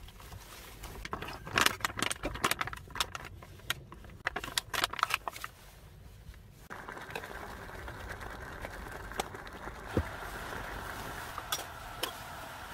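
Plastic pouch of a self-heating meal pack crinkling and crackling as it is handled, in quick irregular bursts. About seven seconds in, it gives way to the steady hiss of steam pouring out of the flameless heater pack as it reacts with the added water.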